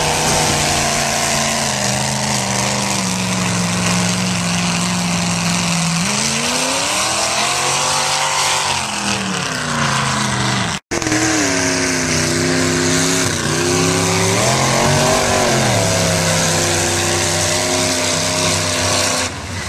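Modified mud-bog pickup trucks' engines running at full throttle through a mud pit, revs held high and then swelling and dipping as the wheels spin and bite in the mud. The sound cuts out abruptly for an instant about halfway through, and then another run continues with its revs rising and falling.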